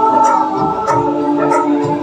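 Instrumental passage of a Kannada group song: held organ-like keyboard chords over a light percussion beat, with no clear voices.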